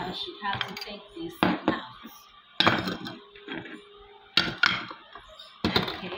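Kitchen utensils knocking against a plate and a plastic mixing bowl: four sharp knocks spaced a second or more apart.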